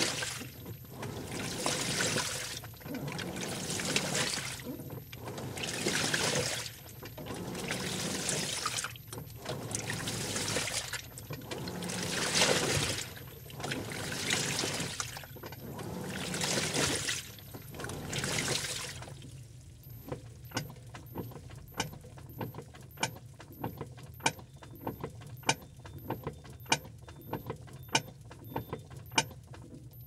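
Washing machine in its wash cycle: water and clothes sloshing in the turning drum, in swells about every two seconds. About two-thirds of the way through the sloshing stops, leaving sharp small clicks, with a faint high electronic tone coming and going.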